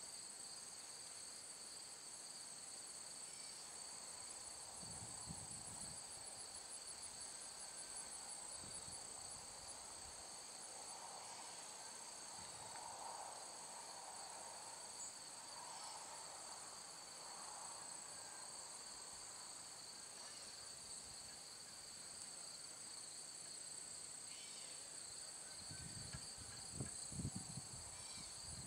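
Steady, high-pitched chorus of insects with a fine, even pulsing. A few low thumps come near the end.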